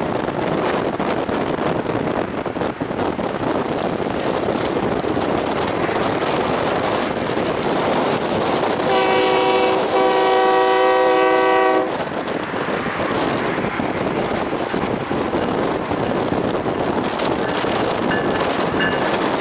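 Diesel locomotives of a freight train passing close by, engines and wheels rumbling steadily. About nine seconds in, a multi-note locomotive horn sounds a short blast then a longer one of about two seconds.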